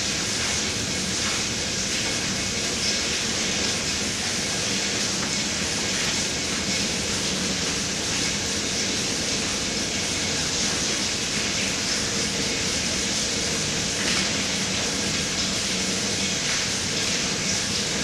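A steady, even hiss with a faint low hum underneath, unchanging throughout, with no distinct knocks or voices.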